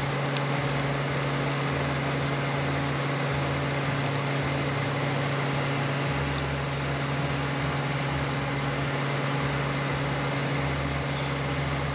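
Steady hum of running machinery: an unchanging low drone over an even hiss, with a few faint light clicks.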